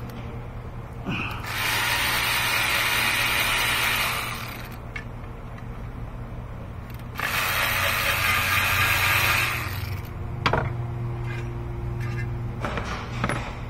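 Cordless electric ratchet with a 10 mm socket running twice, about three seconds each time, spinning out intake manifold bolts, with a few small clicks and taps of tools between and after.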